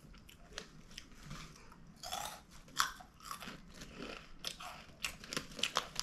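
Someone chewing Twisties, crunchy cheese-flavoured corn snacks, heard close up: a run of irregular crisp crunches.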